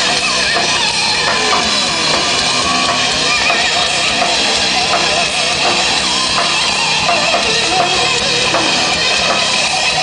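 Rock band playing live and loud, with drum kit and bass under a lead line that bends in pitch, as in an instrumental solo.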